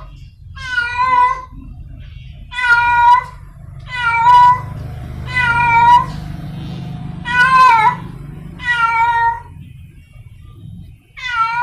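Stray domestic cat in heat yowling for a mate: a series of about six short, pitched meows roughly a second and a half apart, then a pause and another beginning near the end.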